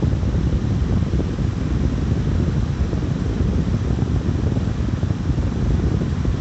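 Steady rumbling noise, heaviest in the low end and fluctuating unevenly, that covers any sound the dog makes.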